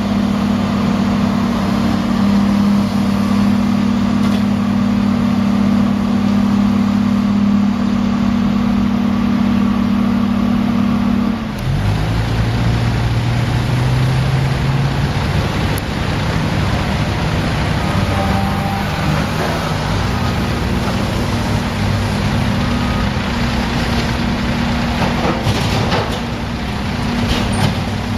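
Large engine running steadily, then dropping abruptly to a lower, rougher pitch about eleven seconds in.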